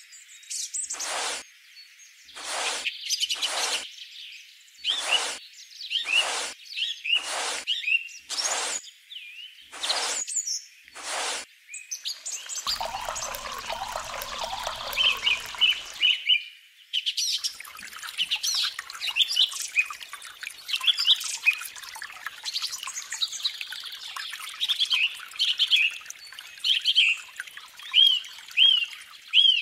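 Birds chirping and singing throughout. Over the first ten seconds short sharp sounds come about once a second, and about halfway through water rushes for about three seconds as the toy hand pump pours into a small metal cup.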